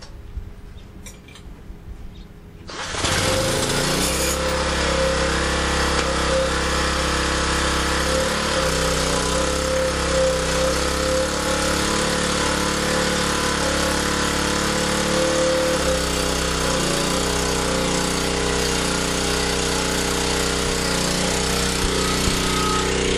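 Small 1200-watt portable generator engine starting about three seconds in, then running loud and steady at high speed under the load of halogen work lights.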